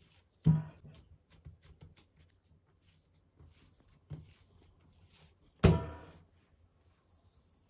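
Hands kneading and pressing cookie dough in a ceramic bowl, the bowl knocking on a wooden table: two sharp thumps, one about half a second in and one near the end, with a softer knock between and light handling sounds.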